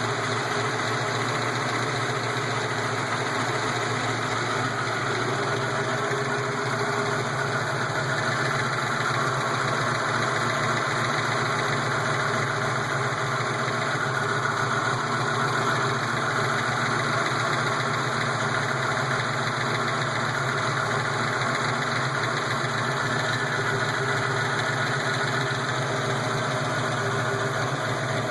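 331 cubic-inch V8 idling steadily, near the end of a warm-up from a cold start. The engine is being run to show its lifter noise.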